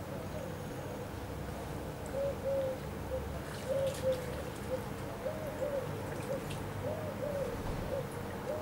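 A bird calling: a run of short, low hooting notes, coming in twos and threes from about two seconds in.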